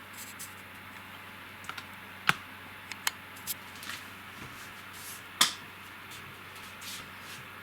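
A Powercase M55MR ARGB PC fan running with a faint steady hiss, with a handful of irregular sharp clicks and taps over it, the loudest about five seconds in.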